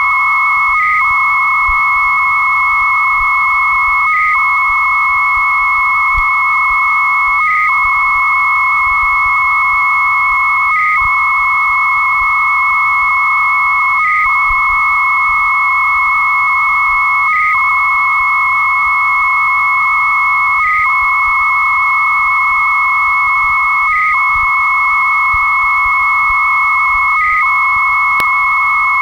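Two 300 baud modems exchanging data over a telephone line during a file transfer: a steady high carrier tone over a dense, buzzing lower data tone. The lower tone breaks off briefly about every three seconds, in a regular rhythm. The line was taped on a cassette answering machine.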